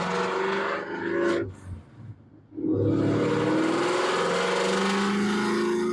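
Ford Mustang's engine revving hard under acceleration, its pitch rising, then dropping away briefly about a second and a half in before pulling up and rising again.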